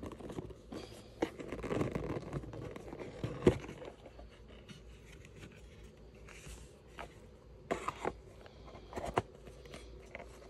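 A cardboard box being handled and its lid lifted off: scraping and rustling of card, with several sharp taps, the loudest about three and a half seconds in.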